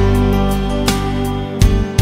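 Song music with steady held low notes and a few sharp beats, one about a second in and two near the end.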